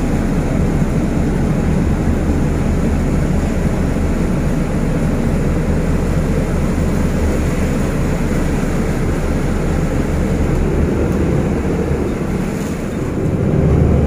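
Loud, steady wind rumble buffeting the microphone: a dense low rushing noise with no breaks, easing slightly about twelve seconds in and swelling again near the end.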